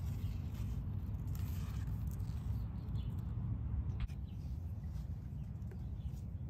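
Outdoor garden ambience: a steady low rumble with faint bird chirps, and a single sharp click about four seconds in.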